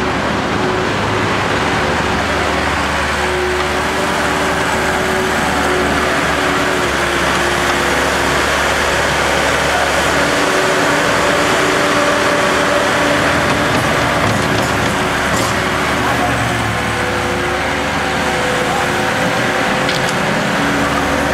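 Case 420 skid-steer loader's diesel engine running, its pitch shifting now and then.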